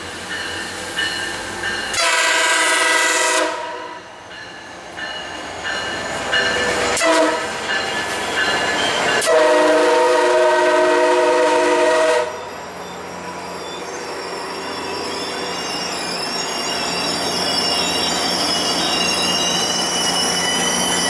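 MARC commuter train's diesel locomotive horn sounding a multi-note chord: a long blast about two seconds in, a short tap near seven seconds, then a longer blast of about three seconds as the locomotive passes. After that the train's cars roll by with thin, high wheel squeal.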